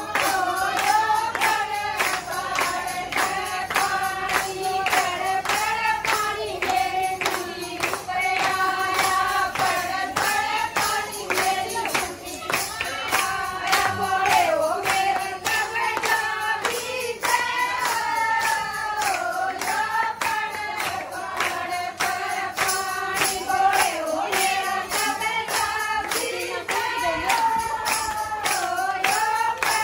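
Women singing a Haryanvi folk Shiv bhajan together, over steady rhythmic hand-clapping that keeps the beat.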